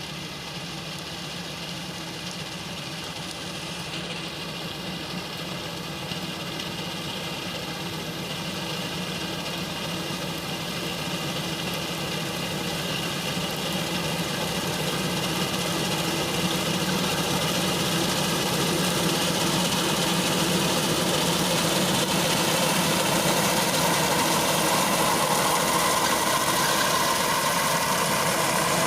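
Tractor engine running steadily under the load of a reaper cutting wheat, growing gradually louder throughout.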